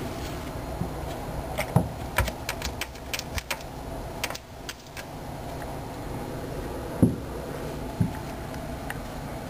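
A cat's tail thumping against a wall: dull thumps, the two loudest about a second apart in the second half. Before them, a quick run of light metallic clicks and clinks from the cat's collar tag as it moves at the window.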